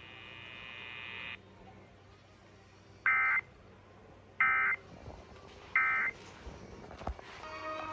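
Emergency Alert System end-of-message data bursts: three short, identical buzzy digital bursts about a second and a half apart, signalling the end of the weather alert.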